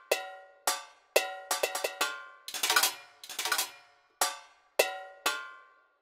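Sampled metal hand percussion from UVI's Orchestral Suite Petites Percussions library, played note by note from a keyboard. Ringing single strikes come about two a second, then a quick run of hits and two short rolls in the middle, then three more single strikes.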